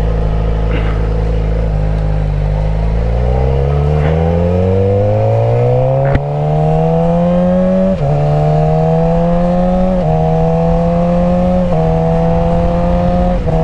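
Suzuki GSX-R 600 inline-four engine pulling as the motorcycle accelerates, its pitch rising steadily for about eight seconds. It then holds nearly level with brief dips every couple of seconds, with wind rush underneath. The owner says it is running great.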